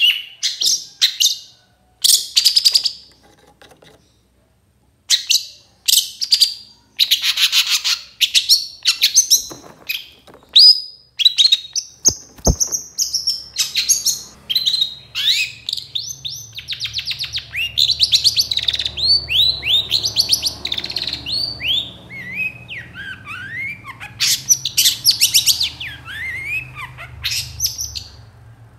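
Long-tailed shrike (cendet) singing: bursts and runs of rapid high notes, turning to quick down-slurred notes in the second half, with a low steady hum underneath from about halfway.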